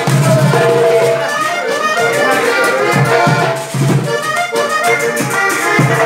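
Instrumental passage of a vallenato merengue played live: a diatonic button accordion carries the melody over pulsing bass notes, guitar and a fast, steady percussion rhythm.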